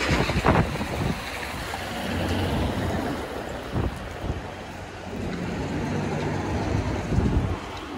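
City street ambience: a motor vehicle's engine running with a low hum, wind buffeting the microphone, and a few short knocks.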